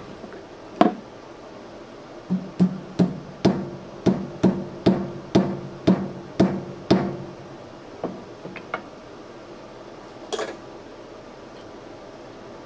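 A metal part is tapped repeatedly: one tap about a second in, then a run of about a dozen taps at two to three a second, a few lighter ones, and a last tap near the end. Each tap rings briefly at the same pitch.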